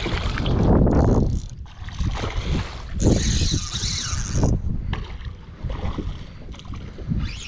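Wind rumbling on the microphone, with water splashing as a hooked fish thrashes at the surface.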